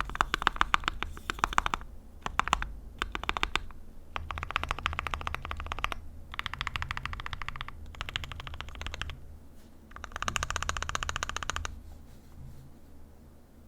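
Mechanical keyboard with lubed C3 Tangerine linear switches on an aluminium plate with PBT keycaps, typed on quickly in runs of keystrokes broken by short pauses. The typing trails off near the end.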